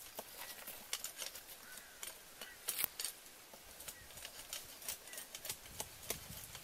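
Dry leaf litter and twigs crackling in sharp, irregular clicks as someone moves and works on the forest floor, with a few faint short bird chirps.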